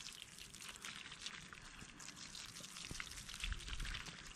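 A thin stream of water squeezed from a plastic squeeze bottle, trickling into snow packed into a hole in rink ice to fill it. A faint steady hiss with many tiny crackles.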